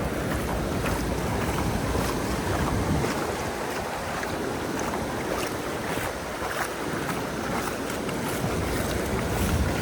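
Surf washing onto a sandy beach, with wind buffeting the microphone; the low wind rumble eases about three seconds in.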